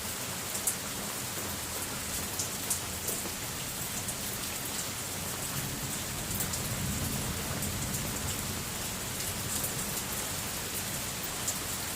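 Steady rain falling, with individual drops ticking close by. A low rumble of distant thunder swells through the middle.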